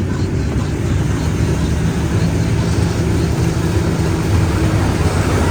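A ride boat's motor running steadily with a low, even drone.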